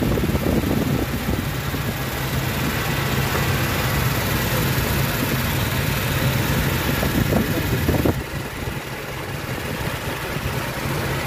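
Toyota Innova engine idling steadily with its serpent belt freshly refitted, no belt squeal standing out; the sound eases slightly about eight seconds in.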